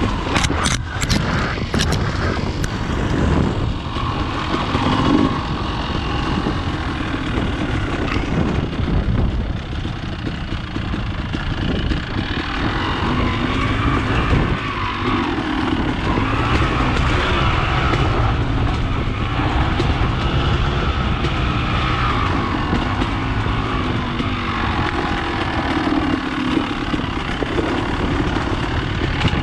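Dirt bike engine running at low trail speed, its revs rising and falling as the rider throttles along the singletrack. A few sharp clicks come in the first two seconds.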